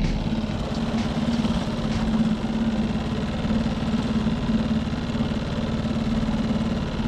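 Boat's outboard motor running steadily at low trolling speed, an even engine note with no change in pace.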